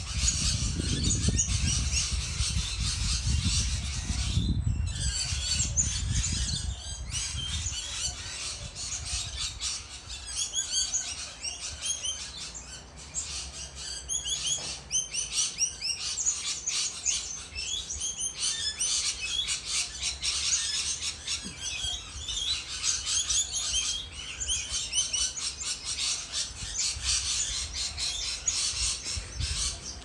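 Many birds chirping and squawking at once in a fruiting umbrella tree: a dense, continuous chatter of short, high calls. A low rumble sits under it for the first several seconds, then fades out.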